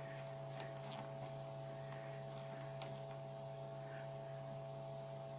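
Faint, steady electrical mains hum with a steady higher tone over it, and a few light clicks.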